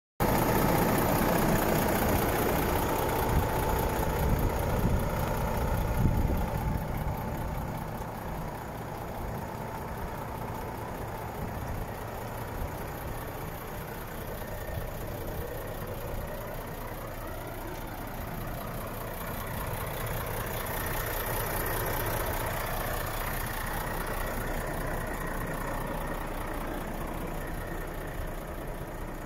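Volvo FH 500 tractor unit's 13-litre straight-six diesel engine idling steadily. It is loudest for the first six seconds or so, then quieter and even.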